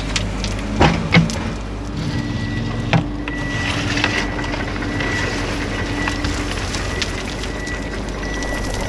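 Steady engine rumble of a heavy vehicle, with a few sharp knocks and clicks in the first three seconds and an on-off high tone from about three seconds in.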